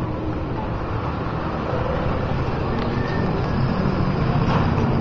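Street traffic noise with a vehicle engine running nearby, growing louder toward the end.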